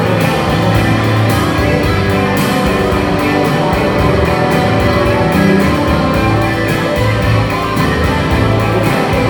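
Loud rock music: electric guitar over a steady drum beat.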